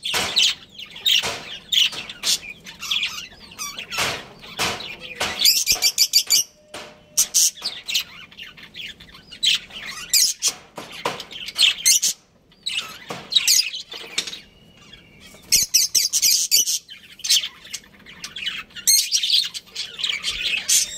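Budgerigars chirping and chattering in rapid runs of short, high calls, with a brief lull about twelve seconds in.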